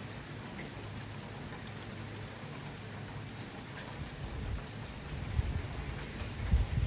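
Steady rain falling and pattering on surfaces, with low rumbles growing from about four seconds in.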